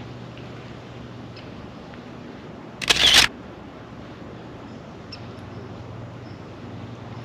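A single short, sharp noise about three seconds in, much louder than the low steady hum of the background.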